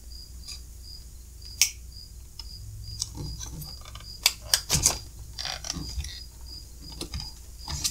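Scattered hard plastic clicks and knocks from handling a UPS's plastic front cover plate and pushing its board connector back onto the socket, with a quick run of sharper clicks around the middle.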